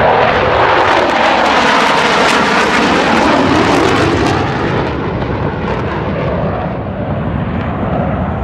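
Thunderbirds F-16 fighter jets flying past. The jet noise is loud for the first four seconds or so, drops in pitch as they pass, and then fades somewhat.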